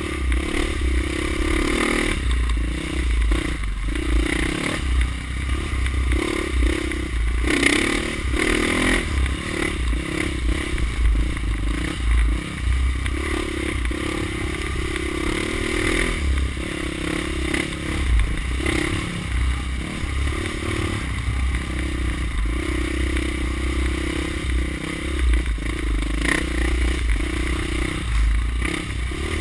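Dirt bike engine running on a trail ride, the throttle opening and easing off again and again.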